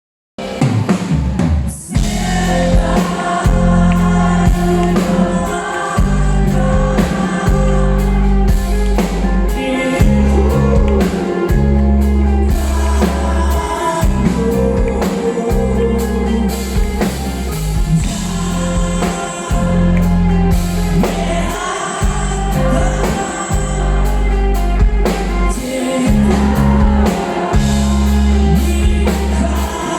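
Rock band playing live: heavy bass and drum kit with guitar and a sung vocal line. The music starts abruptly just after the beginning.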